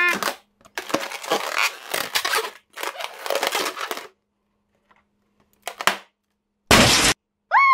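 Hands rubbing and squeezing a latex balloon, the rubber squeaking and crinkling for a few seconds. Then, near the end, one loud pop as the balloon bursts.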